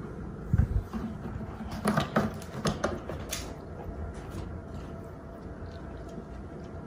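Kittens moving about in a wire crate with a cardboard box: a couple of low knocks about half a second in, then a cluster of scratchy clicks around two to three seconds in, then quieter.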